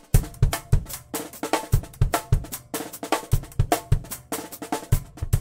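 Drum kit playing a steady groove of kick drum, snare and cymbal hits.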